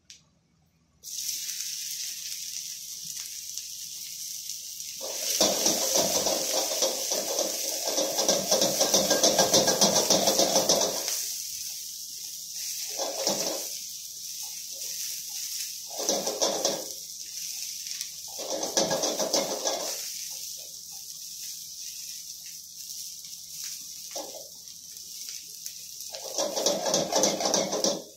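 Hot oil sizzling steadily in a wok on a gas burner. About five seconds in the sizzle grows much louder as vegetables go into the pan, and then comes in short bouts as a spatula stirs and tosses the stir-fry against the wok.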